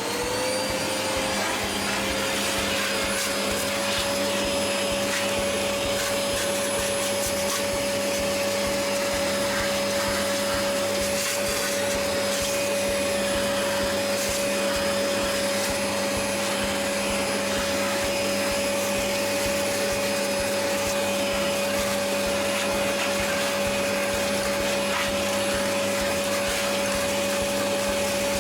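Vacuum cleaner winding up to full speed within the first second, then running steadily with a high whine over the rush of air, a few light clicks around the middle; it is being used to suck the packed dust off an air conditioner's filter.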